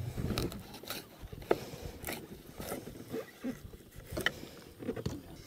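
Knife filleting a redfish on a wooden cutting board: scattered light clicks and scrapes as the blade cuts through skin and bone and touches the board, over a low rumble.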